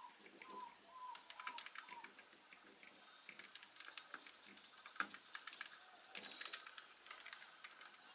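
Typing on the keys of a Fingers Magnifico Moonlit wired USB membrane keyboard: soft, faint, irregular key clicks. The keys are very silent.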